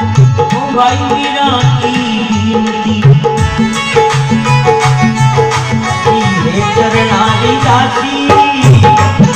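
Dholak drum playing a brisk folk rhythm under a man singing a Hindi devotional folk song (bhajan), his phrases rising and falling over held accompanying notes.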